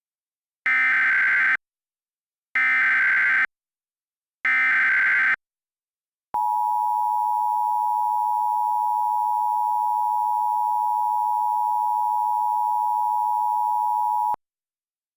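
Emergency Alert System signal: three short bursts of SAME header data, each about a second long and a second apart, then the two-tone attention signal (853 and 960 Hz together) held steady for about eight seconds before it cuts off.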